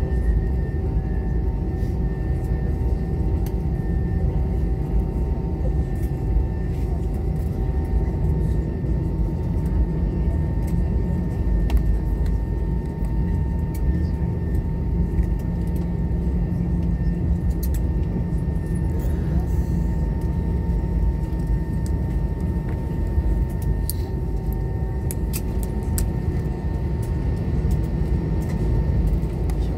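Cabin noise of an Airbus A320 taxiing slowly on idling engines: a steady low rumble with a faint, even whine above it.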